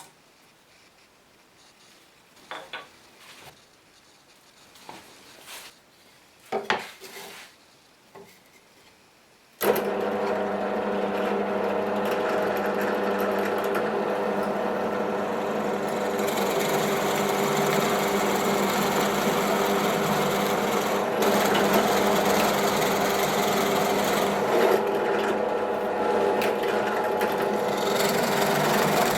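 A few light knocks of wood being handled, then an electric woodworking power tool starts abruptly about ten seconds in and runs steadily while working wood, with a constant motor hum under it.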